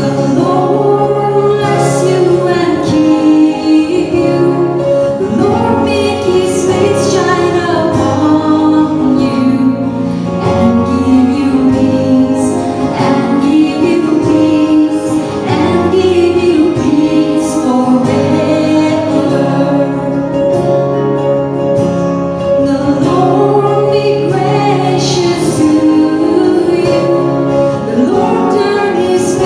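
Closing worship song: a woman singing over an accompaniment, with guitar strumming.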